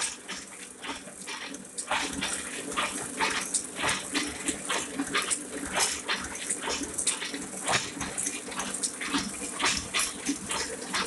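Ryobi 3200CD small-format offset printing press running: a fast, uneven clicking clatter over a steady hiss, louder from about two seconds in.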